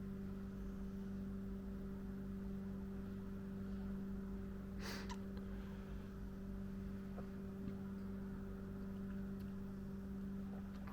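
Steady low electrical hum with a single brief click about five seconds in.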